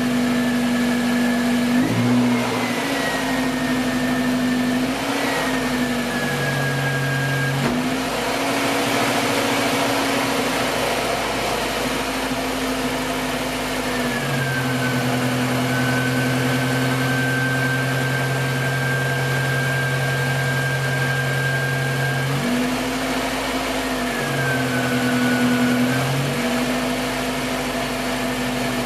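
Honda B16 four-cylinder engine running in a CRX on its first start after a new timing belt and water pump, its speed stepping up and down every few seconds. A faint high whine dips in pitch with some of the changes.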